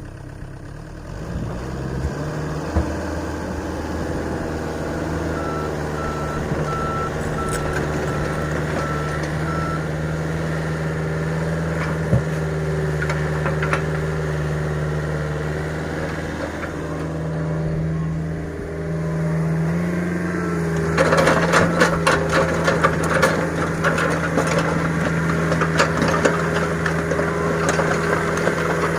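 Heavy machinery engine running steadily at low revs. For a few seconds a reversing alarm beeps about twice a second. Later a long stretch of rattling and clattering begins and runs on to the end.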